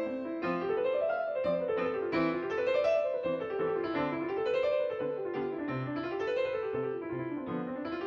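Piano music: a steady stream of rippling notes that fall and climb again in waves, over and over.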